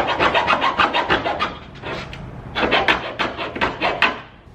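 Hand sawing through a taped strip of plastic with a metal core: quick back-and-forth strokes, about six a second, in two runs with a short pause about two seconds in.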